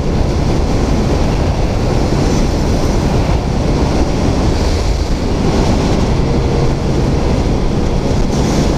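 Steady wind rush on the microphone and road noise from a motor scooter riding at speed, with a faint low engine hum coming through in the second half.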